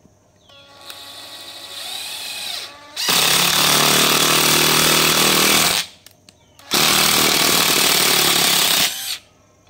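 National 12 V cordless oil-pulse (hydraulic) impact driver working into a block of wood. Its motor spins up with a rising whine, then the oil-pulse mechanism goes into two long, loud stretches of rapid hammering separated by a short pause; this noise is typical of these oil-pulse drivers.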